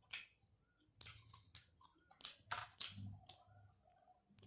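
Faint chewing and mouth clicks of someone eating boiled chicken and rice, a dozen or so short, soft clicks scattered irregularly over a low hum.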